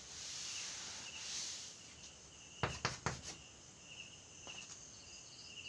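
Felt blackboard duster rubbing chalk off a blackboard, a soft scrubbing hiss, followed about two and a half seconds in by a few sharp taps and scrapes of chalk writing on the board.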